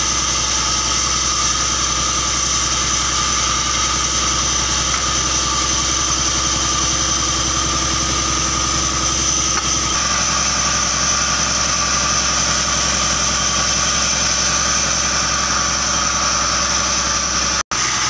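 An engine running steadily at idle, a constant unchanging hum. It cuts out for a moment near the end.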